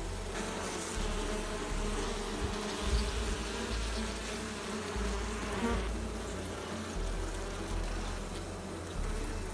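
Bees buzzing steadily, the hum of their beating wings wavering slightly in pitch, over a low rumble.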